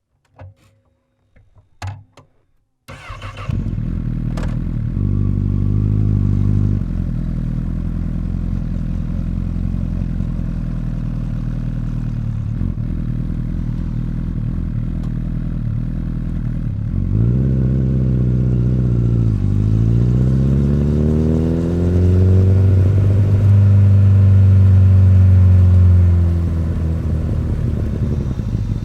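A Honda CBR1000RR's inline-four engine with an Akrapovic exhaust is started about three seconds in, after a few faint clicks, and settles into a steady idle. In the second half the revs rise and fall twice, the second time held higher for a few seconds, then drop back to idle.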